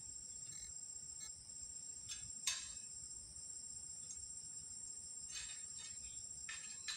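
Steady high-pitched insect chorus. A few brief sharp cracks or rustles cut across it, the loudest about two and a half seconds in.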